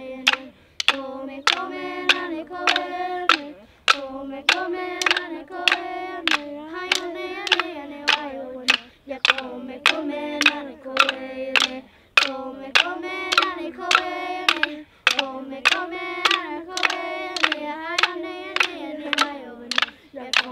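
Children singing a Paiute handgame song together in repeating phrases, over a sharp steady beat about twice a second.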